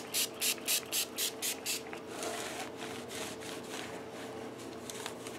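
A cloth rubbing over a guitar's fretboard and frets, wiping off metal polish. It starts as quick back-and-forth strokes, about four a second. After about two seconds it turns into softer, steady wiping.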